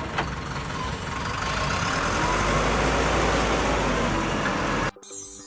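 Motor vehicle engine running with a noisy rumble that grows louder about two seconds in, then cuts off abruptly near the end.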